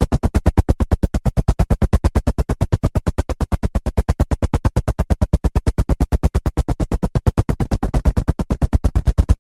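Helicopter rotor blades chopping the air in a rapid, even beat of several pulses a second, with a steady engine underneath.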